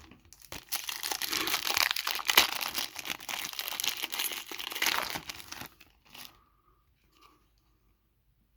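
Trading-card pack wrapper being torn open and crinkled, a dense crackling for about five seconds, followed by a couple of faint handling sounds.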